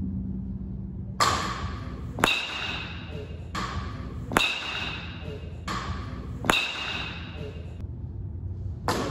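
A baseball bat striking pitched balls in a batting cage: four sharp cracks about two seconds apart, each with a brief ringing tail.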